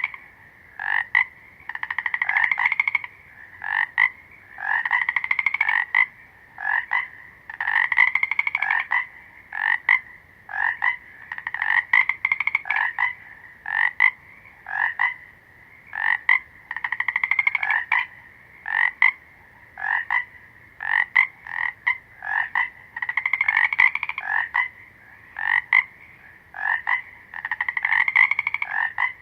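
Frogs calling in a repeating pattern: a call about a second long that rises slightly in pitch, followed by two or three short croaks, every three to four seconds.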